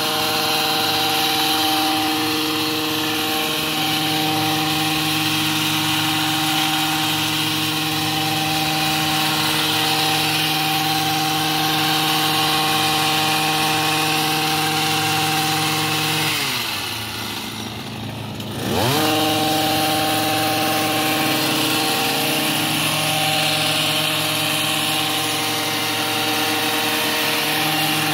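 Small gas engine of a handheld hedge trimmer running steadily at cutting speed. About two-thirds of the way through, the throttle is let off and the engine winds down toward idle, then revs sharply back up and runs steady again.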